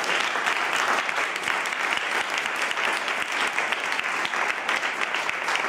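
A small crowd of people clapping their hands in applause, the dense clapping thinning a little near the end so that single claps stand out.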